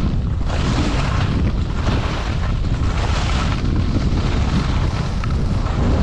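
Wind buffeting an action camera's microphone during a downhill ski run, a steady low rumble, with the hiss of skis scraping over packed snow swelling and fading with each turn.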